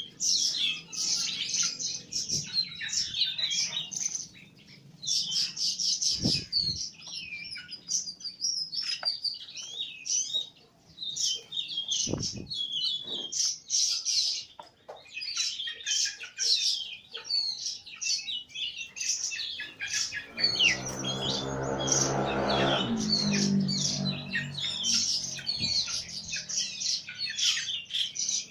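Small birds chirping rapidly and continuously while being fed. A lower, pitched hum joins for a few seconds about twenty seconds in.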